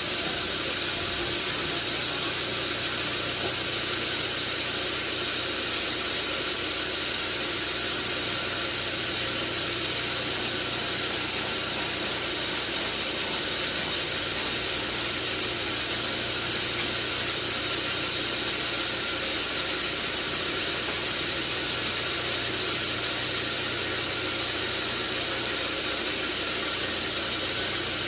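Sawmill machinery running steadily: a constant hiss over a low hum, with no breaks or impacts.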